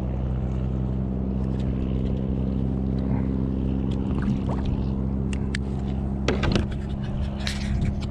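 Steady low drone of a motorboat's engine running at constant speed. A few sharp knocks and rattles from handling in the kayak come near the end.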